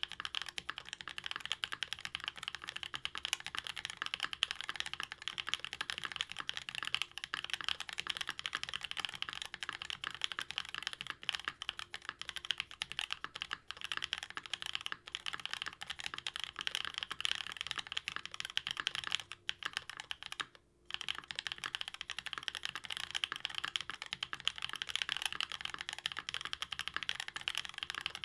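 Continuous fast typing on a Jaguar V2 custom mechanical keyboard fitted with lubed Black Cherry Pies linear switches on an aluminium plate, X-ring mounted, with GMK Klassiker keycaps. The keystrokes run dense and even, with two short pauses a little past two-thirds of the way through.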